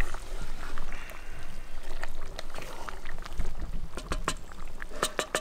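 Wooden spoon stirring thick, bubbling curry in a cast-iron Dutch pot, with a few sharp knocks near the end, over a low rumble of wind on the microphone.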